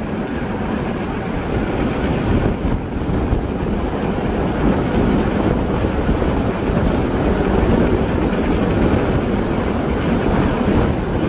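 Steady wind rumble buffeting the microphone, mixed with the tyre noise of an e-bike rolling over rough, cracked asphalt.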